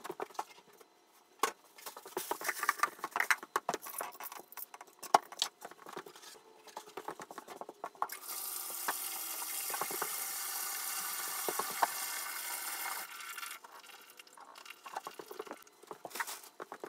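Scattered clicks and knocks, then water running from a bathtub faucet as a steady hiss for about five seconds, stopping suddenly, followed by more light clicks.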